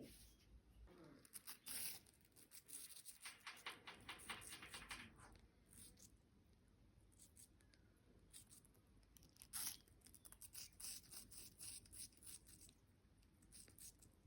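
Indian ringneck parakeet's beak faintly crunching and nibbling a piece of apple: irregular clusters of small clicks and crackles, the sharpest snap about nine and a half seconds in.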